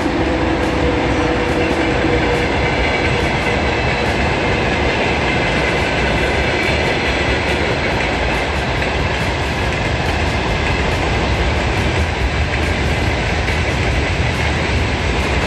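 Long freight train of tank cars and open wagons rolling past, its wheels on the rails making a steady, unbroken rumble.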